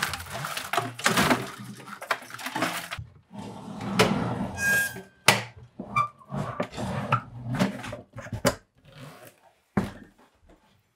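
Handling noises from a 1992 Williams Fish Tales pinball machine being taken apart: the wiring loom rustling and scraping, and parts of the playfield and cabinet clunking and clicking at irregular moments. There are a few short squeaks a little before the middle.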